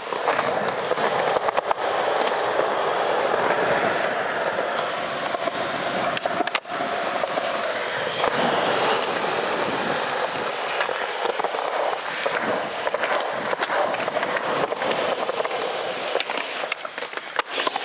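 Skateboard wheels rolling on smooth concrete in a steady, continuous roll, with a few sharp clacks of the board near the end.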